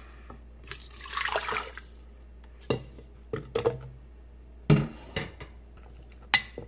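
Water poured into an empty blender jar for about a second. Then chunks of apple and blanched cabbage are dropped in, making a series of knocks and thuds, the loudest about five seconds in.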